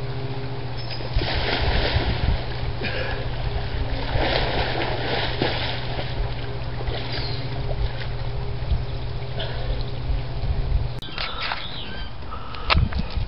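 Water splashing and sloshing in a swimming pool as someone swims, coming in patches over a steady low hum. About eleven seconds in, the sound cuts to open-air background with a few sharp clicks.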